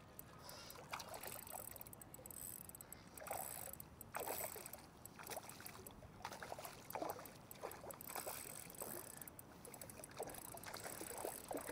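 Faint, irregular splashing and sloshing of shallow water in scattered short splashes.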